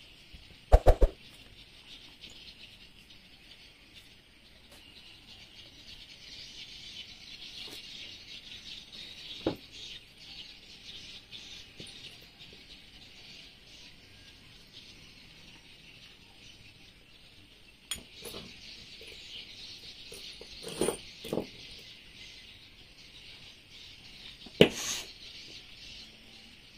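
A few scattered metal clicks and knocks from hand work on a Yamaha 40 hp outboard's powerhead, the loudest near the end, over a steady high-pitched background hiss.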